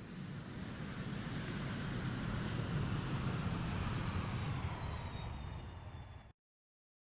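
Jet airplane passing, a low rumble with a high engine whine that slowly falls in pitch, swelling in the middle; the sound cuts off suddenly about six seconds in.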